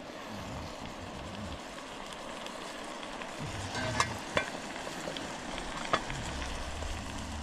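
Steady hiss of a backpacking canister stove burning under a metal pot of water with fish pieces in it. A few light metal clinks come from the pot as it is handled, about midway and again later.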